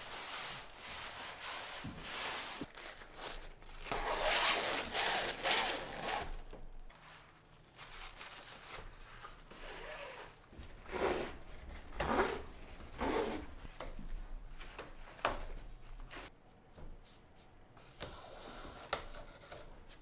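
Synthetic fabric skin of a skin-on-frame kayak rustling and rubbing under the hands as it is laced and sewn, in separate swishes, loudest about four to six seconds in, with a few light ticks.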